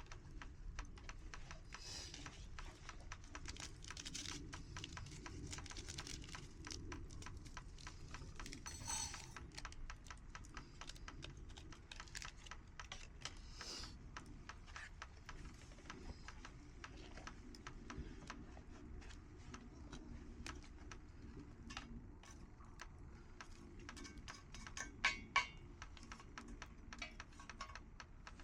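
Small wood campfire crackling: a steady stream of fine pops and ticks, with two sharper snaps near the end.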